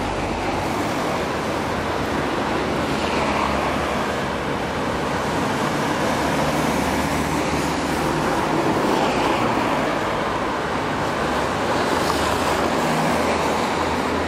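Road traffic on a town street: a steady wash of car engine and tyre noise that swells a few times as cars pass.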